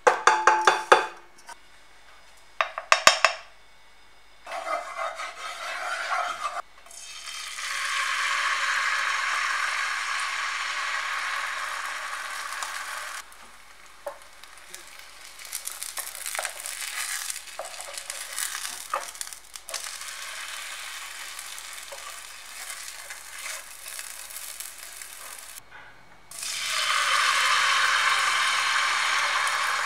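A wooden spoon stirs batter in a bowl with a couple of short loud clattering strokes at the start. Then pancake batter sizzles in a hot non-stick frying pan, swelling loud for several seconds at a time and loudest near the end, as fresh batter is ladled into the pan.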